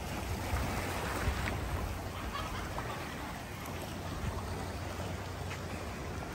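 Sea surf washing on the shore, a steady rushing of water with a few faint ticks.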